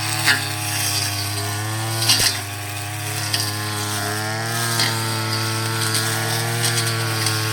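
Small petrol engine of a grass cutter running steadily at working speed, its pitch wavering a little, with a few sharp ticks as the line or blade strikes into grass and weeds.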